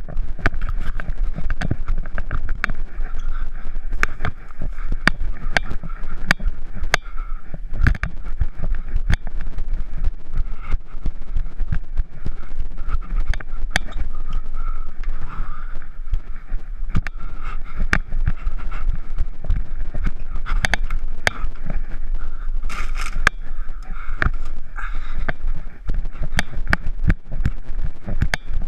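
Head-strapped action camera jostled by the wearer's walking: a steady low rumble with sharp knocks and scrapes, irregular, about one or two a second.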